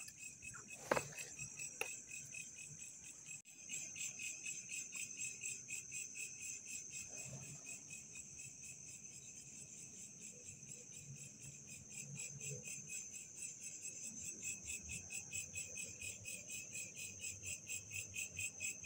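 Crickets chirping in a fast, even pulse at two pitches, growing a little louder toward the end.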